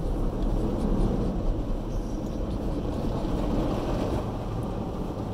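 Steady low rumble of a moving car heard from inside the cabin: road and engine noise.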